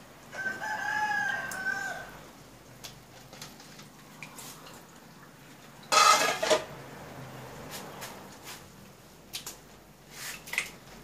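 A rooster crows once, a call lasting a little under two seconds, and a short, loud squawk follows about six seconds in. Light clicks of snail shells being handled in an aluminium bowl are heard in between.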